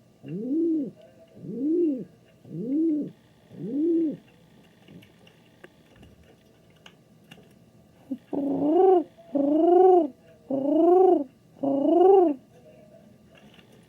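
King pigeon cooing: four coos about a second apart, each rising then falling in pitch, then after a pause of a few seconds four louder, higher coos.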